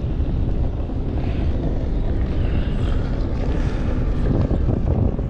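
Strong wind buffeting the microphone: a steady, gusting low rumble.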